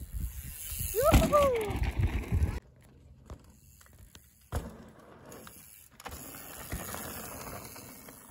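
Mountain bike descending a steep dirt chute: heavy low wind rumble on the microphone with tyre noise, and a short high sound that rises and then falls in pitch about a second in. Two and a half seconds in it cuts abruptly to a faint hiss, with a single sharp knock midway.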